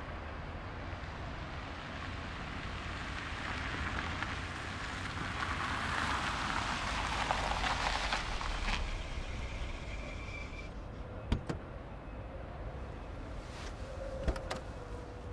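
A Suzuki car drives up over a wet, slushy road, its tyre hiss and engine swelling to a peak about eight seconds in and dying away as it stops. A couple of sharp clicks follow, one near the end as a car door opens.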